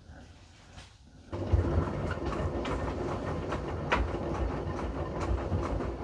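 Front-loading washing machine in the wash stage of a tub-clean cycle: about a second in, the drum starts tumbling, sloshing sudsy water with a steady low rumble and scattered light knocks.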